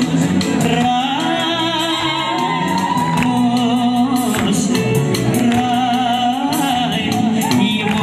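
Music with singing: a wavering voice over sustained instrument tones, with repeated percussion hits.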